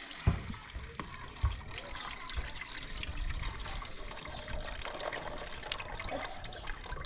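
Running water with a steady trickling hiss, and a few dull knocks near the start.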